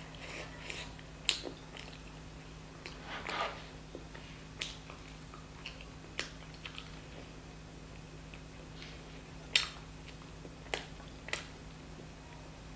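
A person eating close to the microphone: scattered wet mouth clicks and smacks while chewing, about half a dozen sharp ones spread through, over a faint steady hum.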